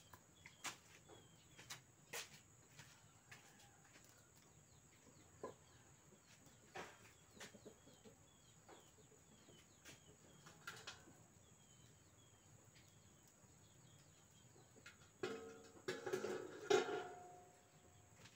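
A chicken calls loudly for about two seconds near the end, over scattered light clicks and knocks and faint high chirping of small birds.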